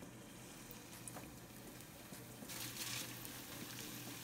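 Hot oil sizzling as raw empanadas are laid into a frying pan. The sizzle swells about two and a half seconds in as a second empanada goes into the oil.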